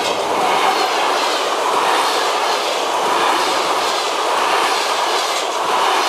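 Passenger train coaches passing close at speed: a steady rush of steel wheels on the rails, with repeated clicks as the wheels cross rail joints.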